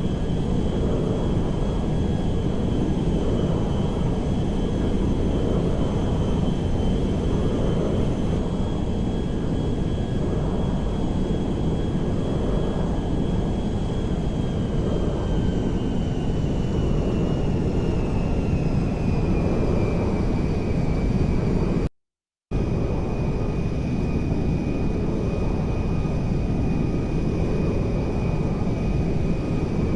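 Airplane engine running with a steady rumble and a thin high whine; the whine slowly drops in pitch about halfway through, then holds. The sound cuts out abruptly for about half a second a little after 20 seconds, then resumes as before.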